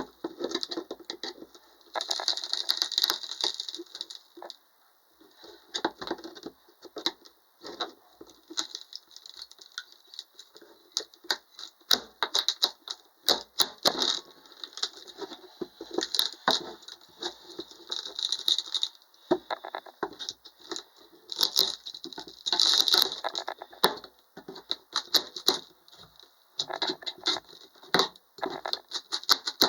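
Irregular knocks, cracks and rattles of wood being worked, in quick uneven clusters.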